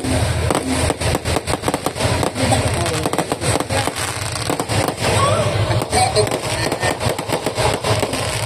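Fireworks going off in rapid, irregular bangs and crackles.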